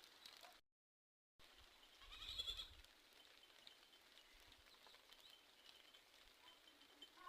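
A goat bleating once, briefly, about two seconds in, over faint steady background hiss. The sound drops out completely for under a second shortly before the bleat.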